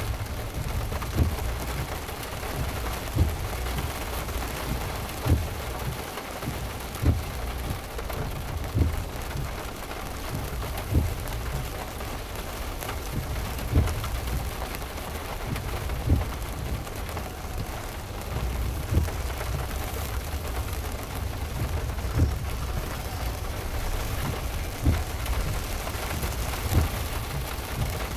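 Heavy rain falling steadily on a car, with a short low thump recurring about every two to three seconds.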